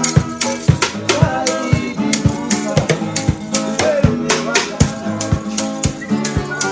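Acoustic guitar strumming chords over a quick, steady beat of sticks on hide-headed drums, with a jingling rattle.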